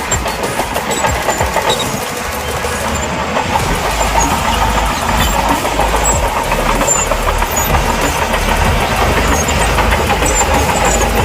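Shantui bulldozer's diesel engine running steadily under load, its low rumble growing heavier about a third of the way in.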